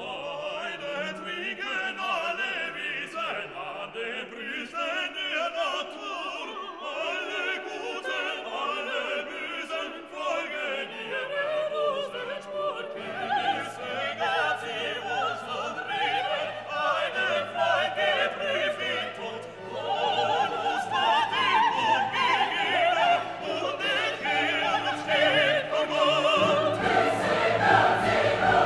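Classical music: operatic singing with orchestra and choir, building fuller and louder in the second half.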